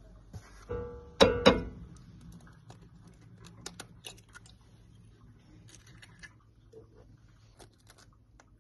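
An egg rapped twice on the rim of a frying pan, two sharp cracks about a second in, just after a short beep-like tone. Light scattered clicks and taps of handling follow over a low steady hum.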